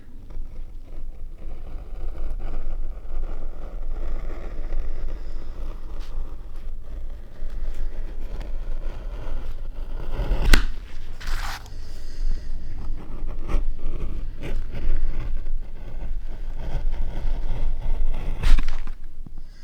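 Hand tools scraping on a linoleum block in linocut printmaking: irregular scratchy scraping with a sharp click about halfway through and another near the end, over a steady low hum.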